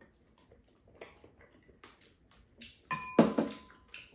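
Spoons and chopsticks clicking lightly against bowls during a meal. About three seconds in, a louder knock and a clear ringing ding that holds for about a second.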